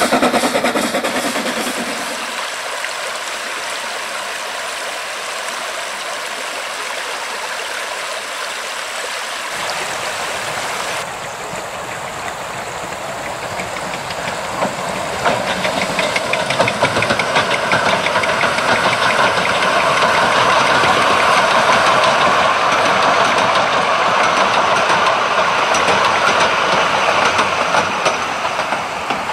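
Vale of Rheidol Railway's narrow-gauge 2-6-2T steam tank locomotive No. 9 working a train, its rapid exhaust beats starting about halfway in and growing louder as it comes up to and across the river bridge. Before it, a steady rush of river water.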